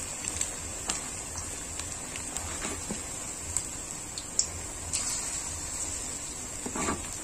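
Battered chicken pakora pieces deep-frying in hot oil in a steel kadai: a steady sizzle with scattered pops and crackles.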